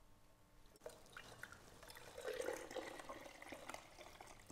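Beef bone broth poured from a slow cooker's ceramic crock through a strainer into a glass mason jar. A few light clicks come first, then a soft, faint trickle and splash of liquid from about two seconds in.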